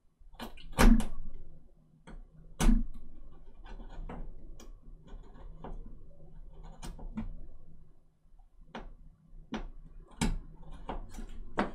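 Scalpel blade shaving and cutting a small wooden model part, giving irregular sharp clicks and snaps with light scraping between them; the loudest snaps come about a second in and again near the three-second mark.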